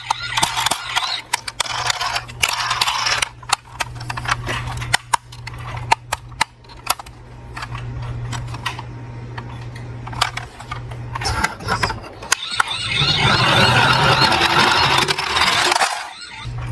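Small die-cast toy cars clicking and clattering against each other as they are handled, with a louder, denser stretch of clatter near the end, over a steady low hum.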